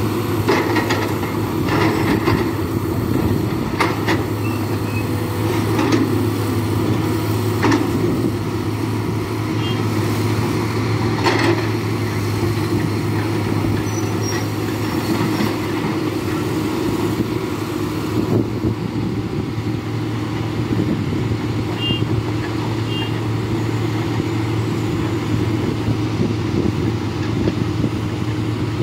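Diesel engines of Tata Hitachi 370 hydraulic excavators running steadily under working load, with several sharp metallic knocks in the first dozen seconds as a bucket works against the granite blocks.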